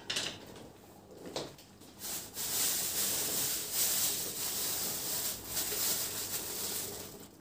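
Plastic bag of frozen chopped greens rustling and crinkling as it is handled, for about five seconds, after a short knock about a second in.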